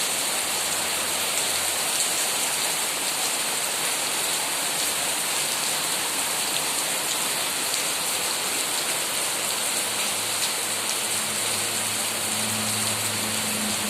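Steady rain falling on trees and foliage: a dense, even hiss with a few louder drops ticking now and then.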